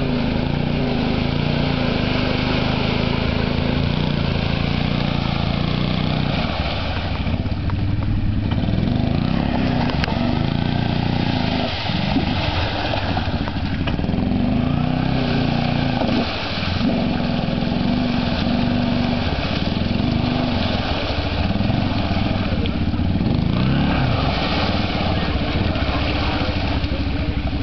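Arctic Cat ATV engine revving up and down repeatedly under load as the quad churns through a mud hole.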